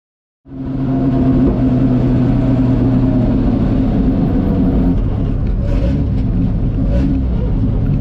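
Jaguar E-Type racing car's engine running steadily at low, even revs, fading in about half a second in.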